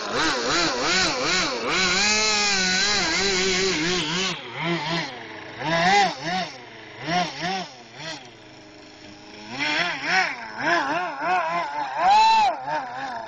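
Home-built RC airboat's motor and air propeller running, its pitch rising and falling over and over as the throttle is blipped, with a sharp high rev near the end.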